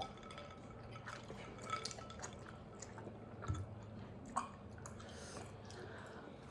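Faint wet eating sounds of milk-soaked cookie being chewed, with a few soft clicks spread through.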